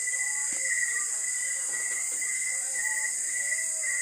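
Night insects calling: a continuous high-pitched shrill chorus with a steady pulsing trill beneath it, and faint distant music underneath.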